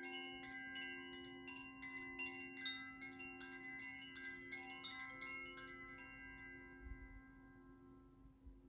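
Bright chime notes struck in a quick run, about three a second, over the steady hum of a singing bowl. The strikes stop about five seconds in and the tones ring out and fade.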